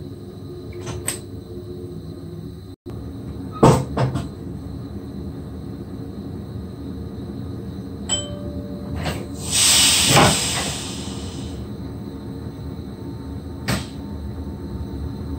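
Steady equipment hum in the cab of a standing SGM Sprinter electric train. Two door thumps come a little under four seconds in, a short beep near eight seconds, then a loud burst of compressed-air hiss around ten seconds, and a click near the end.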